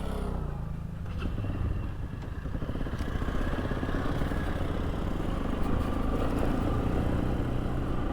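Motorcycle engine running under way on a rough dirt track, the engine sound slowly getting louder, with rattling from the rough ground.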